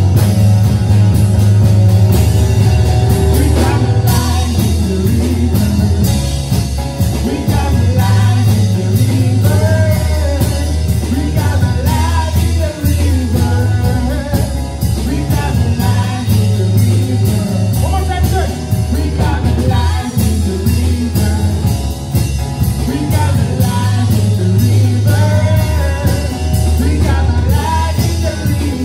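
A band song with a voice singing over guitar, bass and a drum kit keeping a steady beat, typical of a church worship set.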